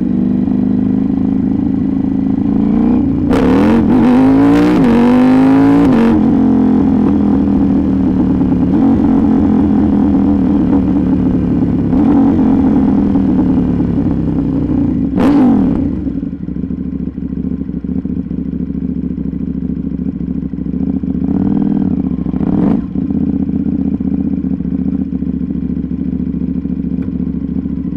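KTM 790 Duke's parallel-twin engine running loud through an Arrow GP2 exhaust with the catalytic converter removed. The revs rise and fall a few seconds in, with another brief rise about halfway through and smaller ones near the end.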